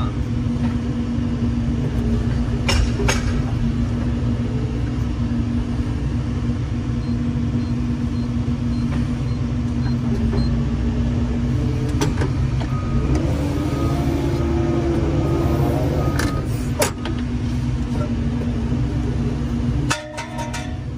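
Doosan 140W-5 wheeled excavator's engine and hydraulics running steadily, heard from inside the cab, with a few sharp clicks. The engine note drops about a second before the end.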